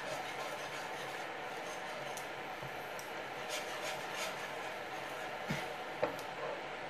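Wire whisk stirring a creamy sauce in a metal frying pan, with a few light clinks of the whisk against the pan and a couple of soft knocks near the end, over a steady low hiss.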